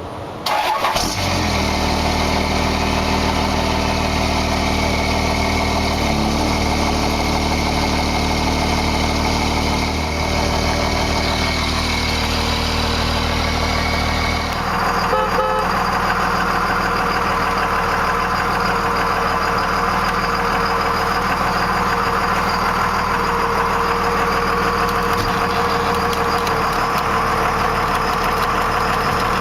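The 5.9-litre Cummins turbo diesel inline-six of a 1998 Dodge Ram 2500 idling steadily. About fourteen seconds in, its tone changes and then holds steady again.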